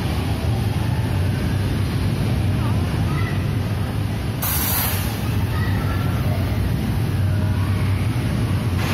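Kiddie drop tower ride letting out a sharp hiss of compressed air, about half a second long, about four and a half seconds in, as the seat ring at the top of the tower begins its drop. Under it runs a steady loud hum of the ride's machinery and the hall, with voices in the background.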